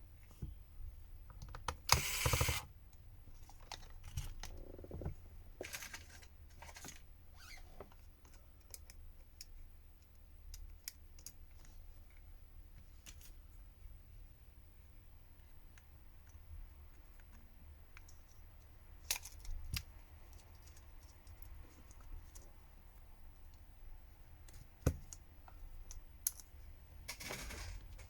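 Light, scattered clicks and taps of small hand tools on a smartphone's parts as its screws are taken out, with a short, louder clatter about two seconds in and again near the end.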